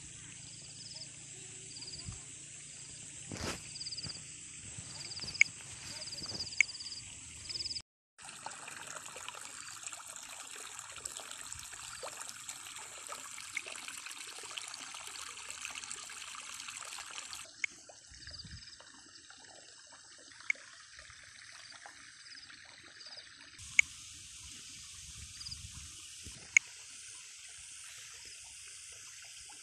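Rice-paddy ambience: water trickling, under a steady high ringing and a high call pulsing about once a second, with a few sharp clicks.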